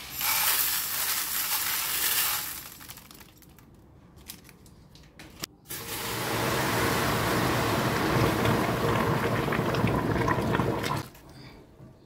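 Granular drain opener poured onto gas stove burner grates in a plastic basin, hissing for about two seconds, then a few light clicks. Boiling water then poured over the grates, splashing and filling the basin steadily for about five seconds before cutting off.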